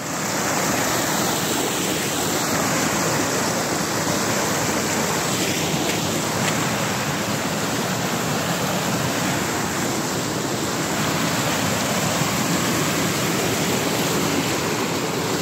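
Creek water rushing and splashing as it cascades in whitewater over boulders, a steady even rush.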